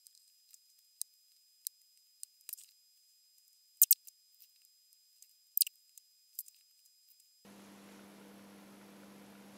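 Sparse, sharp clicks and snips of hand tools and wire being handled while power wires are cut and soldered to LED strips, the loudest pair about four seconds in. A faint steady high tone lies under them, and a low hum comes in near the end.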